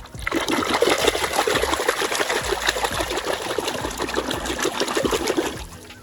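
Running water splashing onto toy vehicles as they are washed. It starts just after the beginning and cuts off about half a second before the end.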